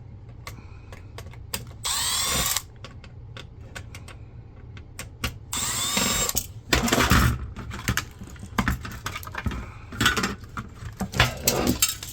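Cordless drill-driver backing screws out of a flat-screen monitor in two short runs, its motor whirring up and winding down each time. Between and after the runs come scattered clicks and rattles of screws and parts being handled.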